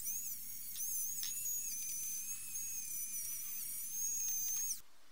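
Rotary tool spinning a small steel wire brush wheel at high speed, a steady high whine whose pitch wavers slightly as the wheel bites, scrubbing stray paint off a masked metal surface. It cuts off suddenly near the end.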